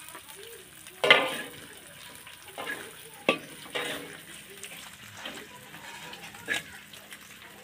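Oil sizzling in a wok as pieces of food fry, with a metal spatula and a wire strainer knocking and scraping against the wok four or five times; the loudest clank comes about a second in.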